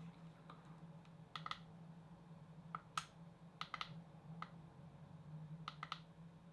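Faint, scattered plastic clicks and taps, about a dozen, from handling and fitting DJI FPV goggles, over a low steady hum.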